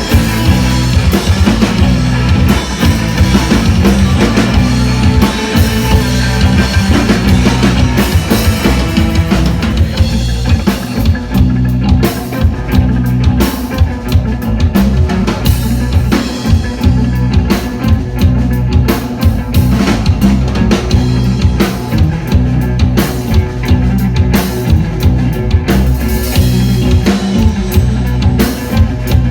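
Rock band playing live, a drum kit keeping a steady beat under heavy bass and guitar.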